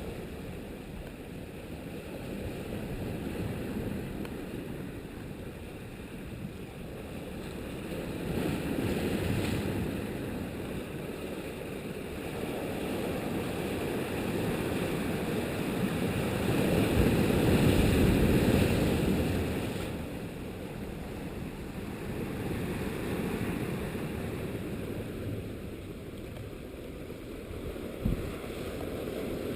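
Strong wind buffeting a GoPro's microphone: a low rushing rumble that swells in gusts, strongest a little past halfway, with a brief knock near the end.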